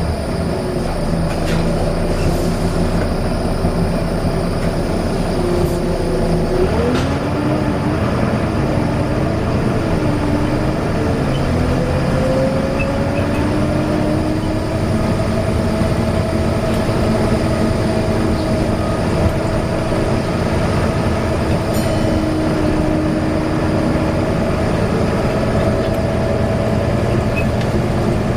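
Volvo B9TL double-decker bus running, with a loud whine over the engine rumble. The whine's pitch wavers up and down about a quarter of the way in, then climbs and holds fairly level.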